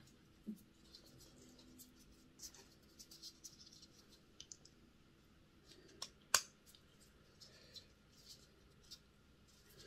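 Faint scattered clicks and scratches of small metal and plastic parts of a model locomotive chassis being handled as a brass gear wheel is fitted to the axle, with one sharper click about six seconds in.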